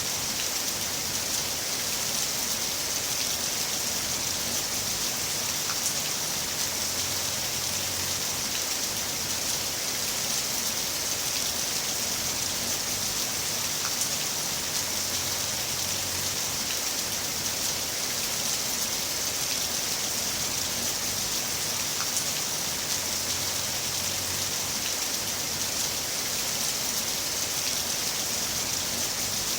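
Heavy rain falling steadily: a dense, even hiss with a few faint drop ticks.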